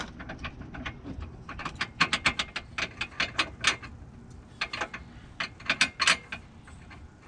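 Hand ratchet clicking in several quick runs of strokes, turning a bolt on a car's front K-member brace.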